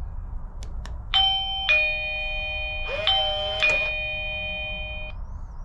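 Electronic doorbell chime from pressing the Eufy Video Doorbell E340's button: a two-note ding-dong, high note then lower, played twice and ringing out for a couple of seconds. It shows the freshly installed doorbell working. Two faint clicks come just before it.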